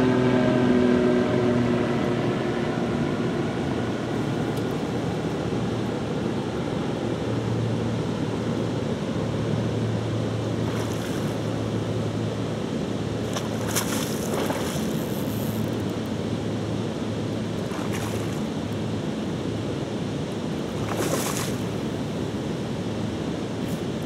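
Steady rush of river water flowing down from a weir. A pitched engine hum fades away in the first couple of seconds, and a few short high hisses come through later.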